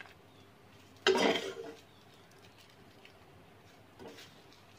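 A steel spoon scraping and knocking against a steel kadhai, loudest once about a second in, with a fainter scrape near the end.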